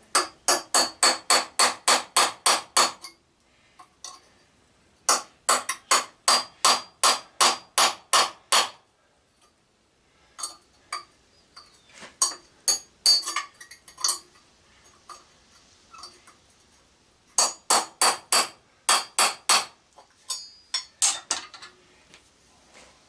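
A hammer tapping a punch to drive the pins out of a push mower's cast aluminum flywheel held in a vise. The sharp metallic taps come in quick runs of about five a second, with short pauses between runs.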